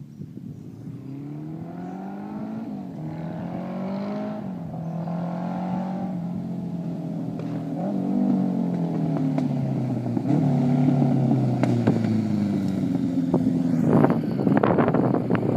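Motorcycle with a Honda Gold Wing 1100cc flat-four engine breathing through aftermarket sport bike mufflers, coming steadily closer and louder. Its exhaust note rises and falls several times with the throttle and gear changes, and it is loud and close near the end.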